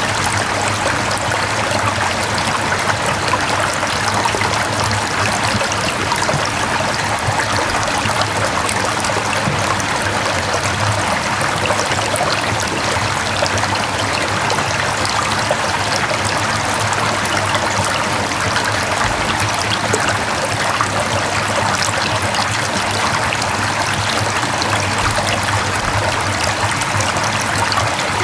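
Mountain valley stream flowing over rocks: a steady, unbroken babble of running water.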